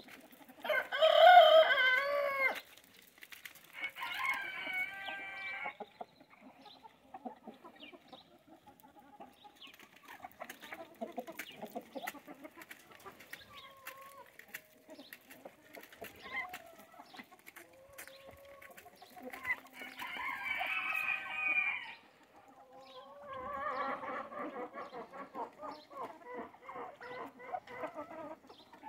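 A flock of chickens clucking, with a rooster crowing loudly about a second in. Further long calls follow at about four seconds, around twenty seconds, and in a rougher run near the end.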